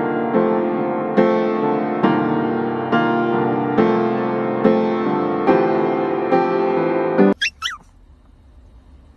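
Piano music with a chord struck a little more than once a second, cutting off abruptly about seven seconds in. Right after it come two short high-pitched cries from an animal.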